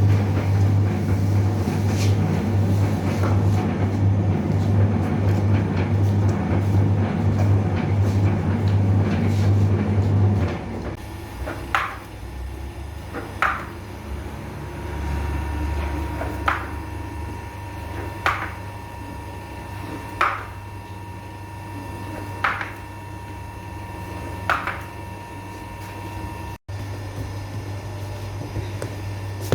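A loud, steady machine hum that cuts off about ten seconds in, followed by a series of sharp knocks about every two seconds.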